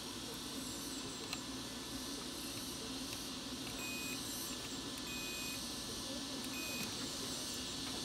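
A digital multimeter's continuity buzzer beeps three times, a short beep about four seconds in, a longer one about a second later and a short one near seven seconds, over a steady hiss. The beeps signal continuity across the contacts of the transfer switch's KW4-3Z-3 micro switch.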